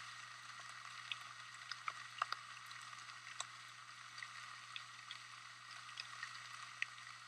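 Rain pattering: a soft, even hiss with scattered small ticks of drops.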